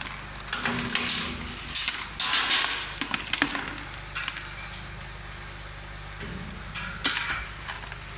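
Cracked walnut shells clicking and snapping at irregular intervals, over the steady hum of a walnut-cracking machine's motor.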